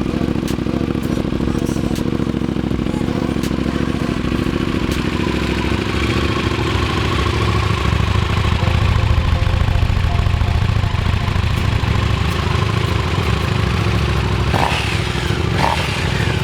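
KTM 790 Duke's parallel-twin engine running through its stock exhaust, a steady low rumble that gets louder for a few seconds around the middle.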